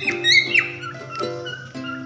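Cockatiels chirping and whistling in short calls that swoop up and down in pitch, loudest in the first half, over background music with held notes.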